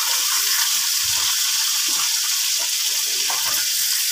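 Tilapia pieces frying in hot oil in an iron karahi: a steady sizzling hiss, with faint short scrapes as a spatula lifts the fried pieces out.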